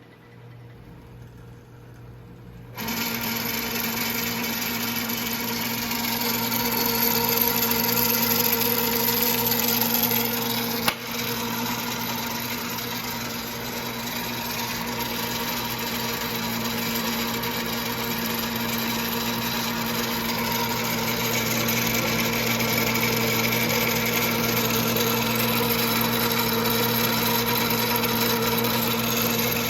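Vintage Atlas metal lathe starting up about three seconds in and then running steadily, its motor and drive giving a constant whine and hum. There is one sharp click about eleven seconds in.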